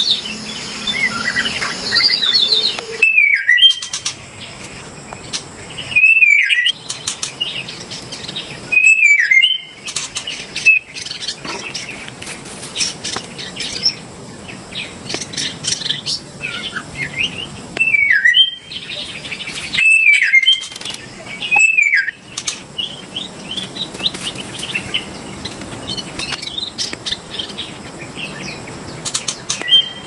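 White-rumped shama (murai batu) singing: loud, rich whistled phrases that swoop and bend, repeated every few seconds, with rapid high chips and trills in between.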